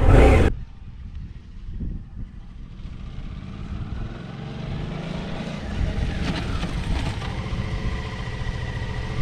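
Suzuki V-Strom 650 XT's V-twin engine as the motorcycle rides toward a stationary ground-level camera and brakes to a stop, growing louder as it approaches.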